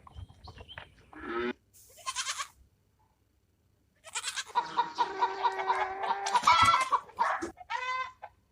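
A series of farm-animal calls: two short calls, a pause of about a second and a half, then a longer call lasting about three seconds, followed by two short calls near the end.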